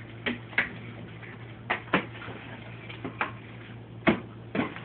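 Latex twisting balloons squeaking and creaking in short, sharp bursts as they are twisted into balloon dogs, about seven times, with the loudest about four seconds in. A steady low hum runs underneath.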